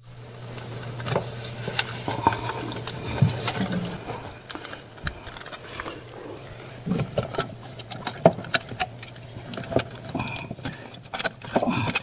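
Hands fitting a thermostat sensor part against a refrigerator's plastic inner liner: scattered clicks, taps and rustles of handling, over a steady low hum.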